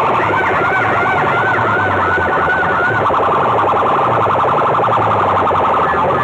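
A rig of aluminium horn loudspeakers blaring at full, distorted volume, playing a warbling siren-like tone for about the first three seconds over a dense wash of sound and a repeating low beat.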